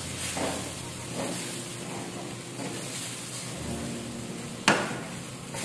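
Leftover rice sizzling as it is stir-fried in a stainless steel pan, a wooden spatula scraping and turning it in short strokes. A single sharp knock near the end is the loudest sound.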